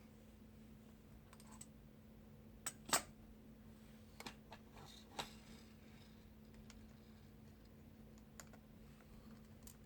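Small sharp plastic clicks and taps as the new laptop fan's cable plug is worked by hand into its connector, the loudest pair about three seconds in and fainter ones scattered after, over a faint steady hum.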